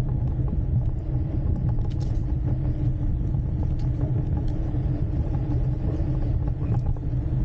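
Steady low rumble of riding a Jetson Bolt Pro electric bike along a concrete sidewalk, with a faint steady hum riding over it.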